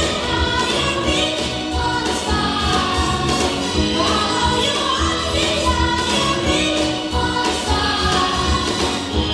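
Song with singing over a steady beat.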